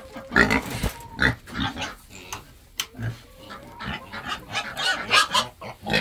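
Pigs grunting in short, irregular bursts while being fed hay.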